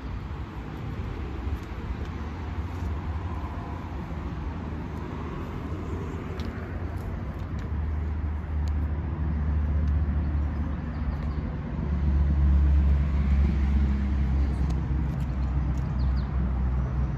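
2013 Ford Focus engine idling, a steady low hum that grows louder about twelve seconds in.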